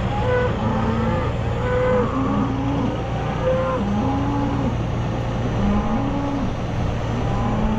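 Beef cows mooing over and over, several calls overlapping, as they crowd in at feeding time, over the steady low hum of a vehicle engine running.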